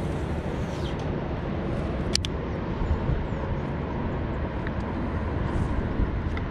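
Steady rumble of wind buffeting the microphone in the open air, with a single sharp click about two seconds in.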